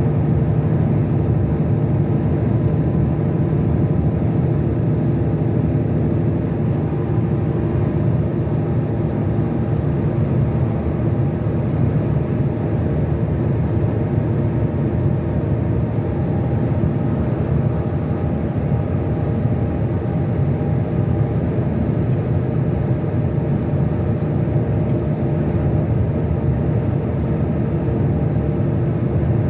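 Car driving at motorway speed: a steady low rumble of tyres and engine with a faint steady hum, unchanging throughout.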